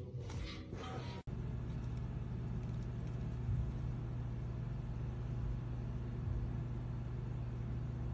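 Steady low background hum with an even rumble and no distinct events, starting at a sudden cut about a second in.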